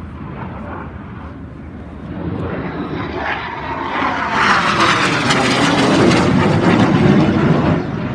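Fixed-wing aircraft making a loud low flypast: its engine noise swells over several seconds, the pitch falls as it passes, and it drops away quickly near the end.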